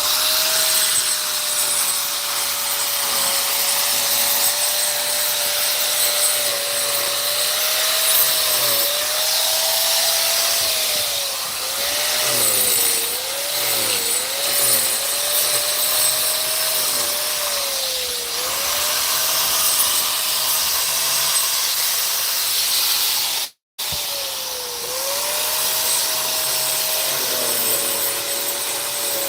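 Electric power tool running continuously, its high motor whine dipping in pitch and recovering again and again as it is pushed against the work. The sound cuts out for an instant about three-quarters of the way through.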